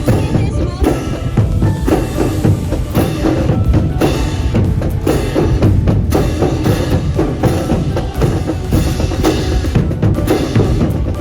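Brass band playing music with snare and bass drums keeping a steady beat.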